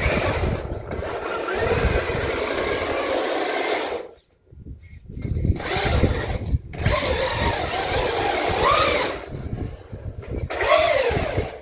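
Traxxas Hoss RC monster truck's brushless electric motor and drivetrain whining under throttle, pitch rising and falling as the wheels spin on ice. The power cuts off briefly about four seconds in, then comes back.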